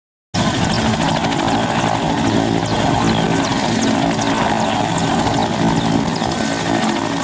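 Mi-8MT helicopter's five-blade main rotor and twin turboshaft engines running close by, loud and steady, during its landing approach. The sound cuts in abruptly just after the start.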